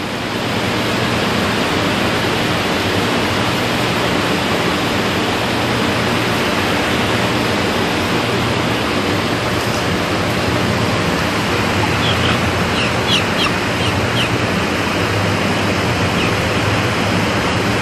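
Steady loud rushing noise with a low hum, typical of the industrial ventilation fans and machinery of a slaughterhouse holding shed. Around twelve to fourteen seconds in, a few brief high chirps come from the crated young broiler chickens.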